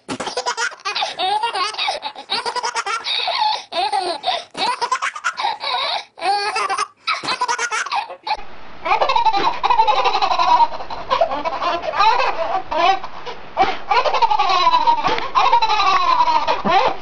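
A baby laughing in a run of short laughs. About eight seconds in, another clip begins with babies laughing together.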